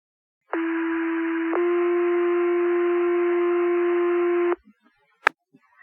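Fire department two-tone sequential page sent over the radio: one steady tone for about a second, then a second tone held for about three seconds, over radio hiss. It is the alert that sets off the station's pagers. A short click follows near the end as the transmitter keys.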